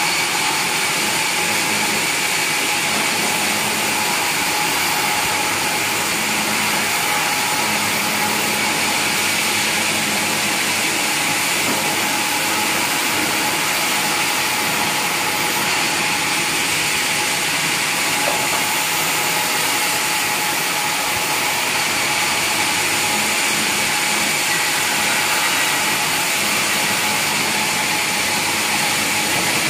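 Sawmill machinery running steadily: a continuous mechanical noise with a constant high whine.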